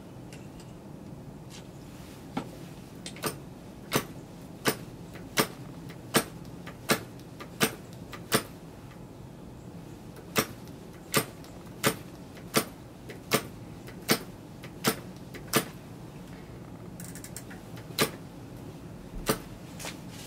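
Propeller of a vintage Frog 500 spark-ignition model aero engine being flicked over by hand again and again, giving sharp clicks about every 0.7 seconds. They come in two runs of eight or nine with a short break, then two more spaced out near the end. The engine turns over but does not catch.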